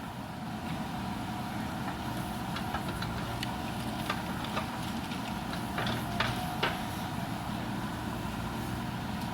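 JCB backhoe loader's diesel engine running steadily, with a handful of sharp knocks and cracks from about two to seven seconds in as the machine works.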